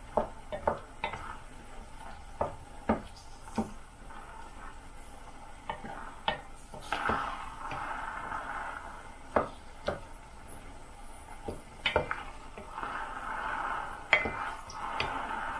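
Wooden spoon stirring whole cranberries in a stainless steel saucepan on a hot plate, with irregular sharp clicks and knocks against the pan and stretches of soft scraping and sizzling in the middle and near the end. The berries are heating to the point where they start to burst.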